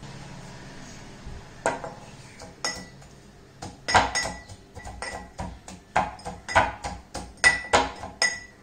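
Brass pestle pounding garlic, ginger and salt in a small brass mortar: about a dozen sharp strikes, each with a brief metallic ring, starting about two seconds in and coming roughly twice a second.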